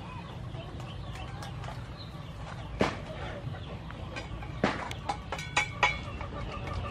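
Free-range chickens clucking as they forage, with short sharp clucks about three seconds in and a quick run of them near the end, over steady low background noise.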